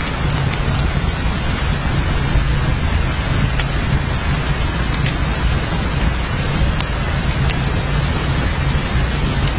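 Steady heavy rain: a dense even hiss with many sharp scattered drop ticks and a steady low rumble underneath.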